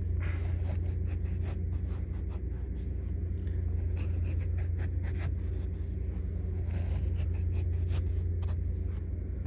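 A small knife making thin cuts in a raw potato on a plastic cutting board: irregular short ticks and scrapes as the blade goes in and meets the board. Under it, a steady low machine hum.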